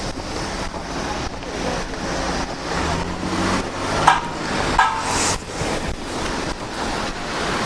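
Gusty wind buffeting the microphone, with a road vehicle passing about three seconds in and two short, sharp high knocks a little later.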